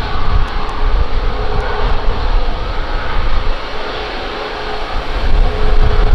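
Jet airliner engines running at low power with a steady whine, mixed with heavy gusty wind buffeting on the microphone; the sound eases about four seconds in and swells again near the end.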